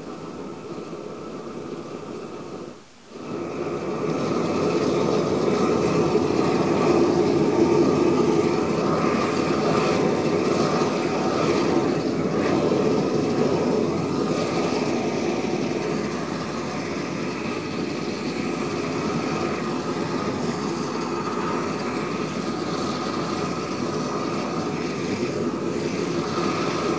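Propane weed-burner torch burning steadily, its gas flame making a continuous rushing noise. It cuts out for a moment about three seconds in, then comes back louder.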